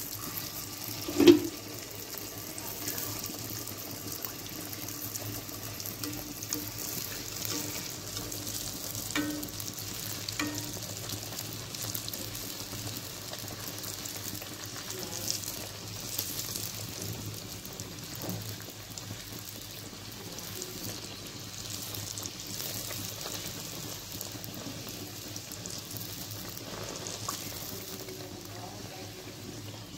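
Dal puris deep-frying in a karai of hot oil: a steady sizzle. There is one sharp knock about a second in and a few lighter taps later.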